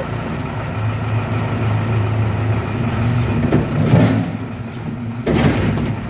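Case 580L backhoe's four-cylinder diesel engine running just above idle while the hydraulics raise the backhoe boom, its note rising slightly about a second in. Two louder bursts of noise, about four and five and a half seconds in, come as the boom wags over center into its transport lock.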